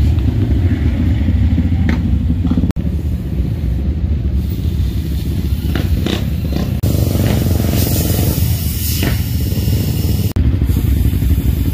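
Off-road vehicle engines running in a steady low rumble, with a few brief sharper noises in the middle.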